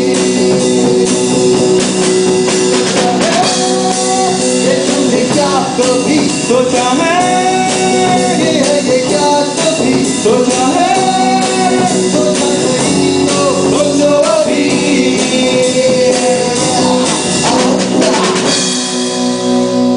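A live band playing during a soundcheck: drums and guitar over steady held chords, with a bending lead melody line. The texture thins near the end.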